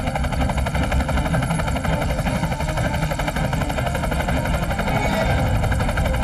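Helicopter hovering low, its rotor beating in a fast, steady chop.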